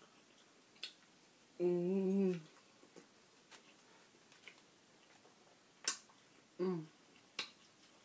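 A woman making closed-mouth "mmm" hums of enjoyment while eating: a longer one about a second and a half in and a short one near the end. A few sharp clicks are scattered between them.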